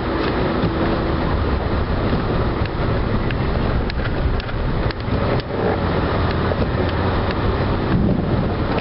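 A plow vehicle's engine running steadily while it plows snow, with a few scattered sharp clicks and knocks.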